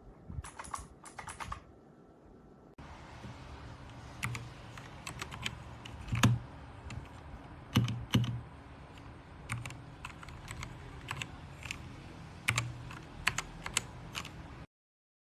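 Typing on an RK61 60% mechanical keyboard: irregular clicking keystrokes, with several louder, heavier key strikes among them. A brief burst of typing comes first, then after a cut a longer run of typing that stops abruptly near the end.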